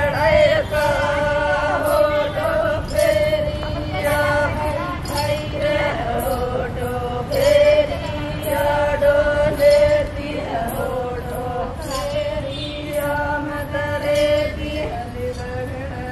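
Lambada (Banjara) women singing a folk song together in one melodic line, with steady hand claps keeping the dance beat.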